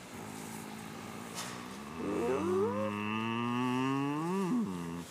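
A man's long, drawn-out, low vocal sound, like a groan. It starts about two seconds in, rises slowly in pitch, and ends with a quick rise and fall.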